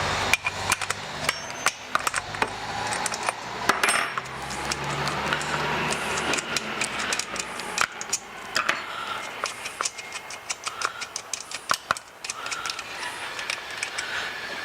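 Irregular small metallic clicks and clinks of a gas chainsaw's parts and hand tools being handled, as the nuts holding the bar cover are undone and the cover worked off.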